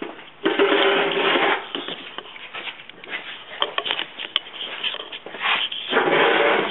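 Handling noise on the camera microphone: two loud rubbing rustles, about half a second in and again near the end, with scattered light clicks and knocks between them.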